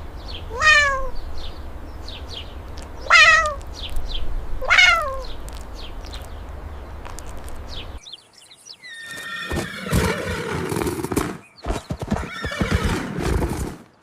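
Horse whinnying three times, each neigh a shaky call that falls in pitch. About halfway through, a different recording begins with a clatter of sharp knocks and shorter calls.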